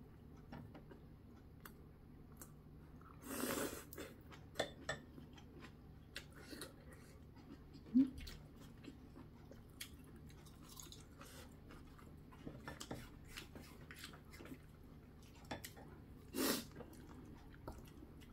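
A person eating: faint chewing with scattered light clicks of chopsticks and a spoon against bowls. Two short, louder rushing sounds come about three and a half seconds in and near the end, and a brief pitched sound about eight seconds in is the loudest moment.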